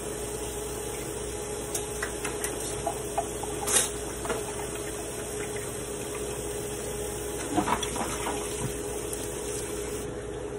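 Steady hiss with a faint hum in a kitchen, broken by a few light clinks and knocks of dishes and utensils, once in a small group about a third of the way in and again in a cluster later on.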